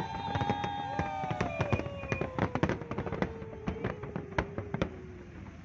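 Aerial fireworks going off: a dense run of sharp bangs and crackles, with several whistling tones that slide slowly down in pitch. The sound fades toward the end.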